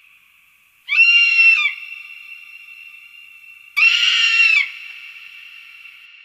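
A hawk calling twice, about three seconds apart: two harsh, screaming calls, each under a second long, with a faint ringing tone lingering after each.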